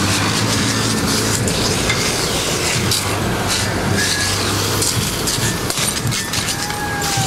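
Water cannon jets hissing as they spray onto the street and barriers, over the steady drone of a heavy engine running. A faint wavering tone comes in near the end.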